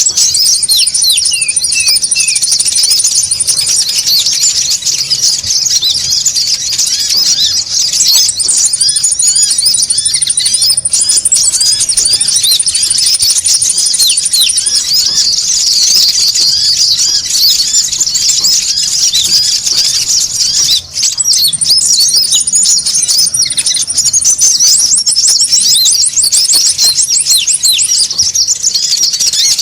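A noisy flock of small konin songbirds chattering, a dense mass of high chirps and twitters, with several stretches of a fast, very high trill over it; a bird-lure call track.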